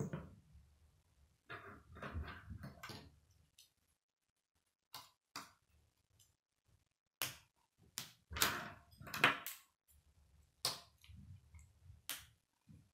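Plastic K'nex rods and connectors clicking and snapping together as they are handled and joined, with pieces knocking on a wooden tabletop: scattered sharp clicks at irregular intervals, a busier, louder cluster a little after the middle.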